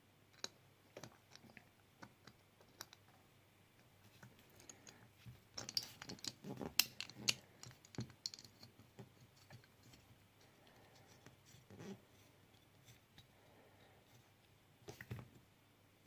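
Faint, scattered small clicks and taps of a gold-plated EC5 connector pin being handled and set into the holes of an aluminium plug clamp tool, busiest in a run of clicks from about six to eight seconds in.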